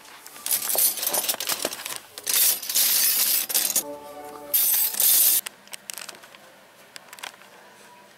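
Old metal cutlery (spoons, forks and knives) clinking and rattling in a wicker basket as a hand rummages through the pile, in several loud bursts over the first five and a half seconds. A brief pitched tone is heard about four seconds in.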